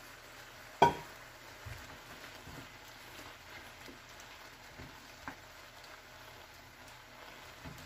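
Mushrooms and raw shrimp simmering in a pan of mushroom juices and kalbi marinade, a faint steady bubbling and popping, with a wooden spatula moving through them. One sharp knock on the pan about a second in.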